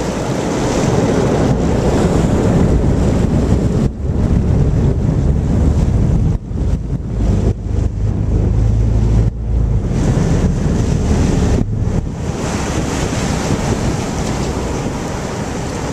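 Wind buffeting the microphone on a moving boat, over the rush of water churning in the wake, with brief gaps where the gusts drop away.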